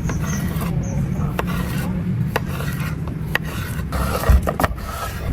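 Rasping, scraping kitchen-prep sounds with scattered light clicks over a steady low hum, and one louder knock about four seconds in.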